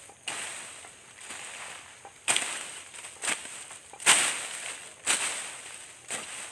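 A long-handled garden tool striking and scraping into soil and leaf litter, six strokes about a second apart, each trailing off in a short scrape; the loudest comes about four seconds in.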